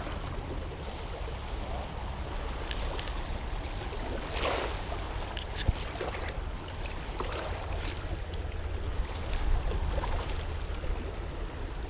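Steady rush of fast-flowing river water below a dam, with wind rumbling on the microphone. A few brief rustles and clicks come through about halfway and again near the end.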